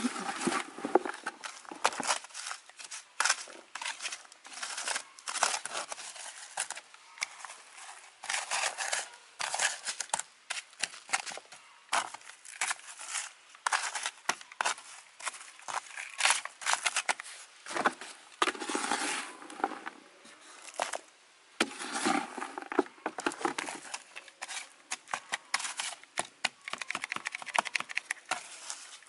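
Hand scoop scraping and spreading loose soil mixed with rice husks across a plastic plug seedling tray, pressing it into the cells. The result is a continuous, irregular gritty scratching and crackling.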